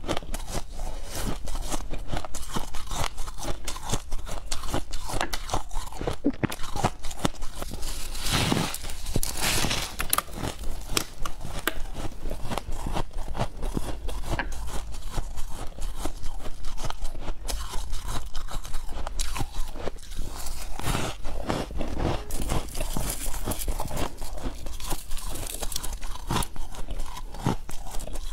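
Close-miked biting and chewing of chunks of freezer frost: dense, continuous squeaky crunching.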